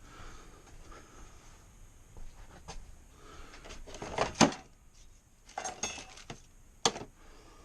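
Scattered knocks and clicks of hand tools and mower parts being handled, the loudest a knock about four and a half seconds in, then a short rattle and one sharp click near the end.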